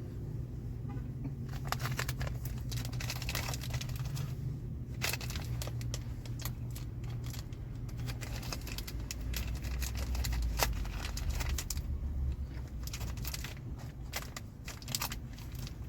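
Someone chewing a soft, chewy granola bar close to the microphone: a dense run of small wet clicks and crackles that starts about a second and a half in and thins out near the end. A steady low hum runs underneath.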